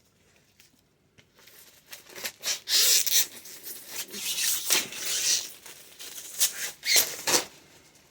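Paper calendar being handled and its pages leafed through: rustling and crinkling in irregular bursts, loudest about three seconds in and again near the end.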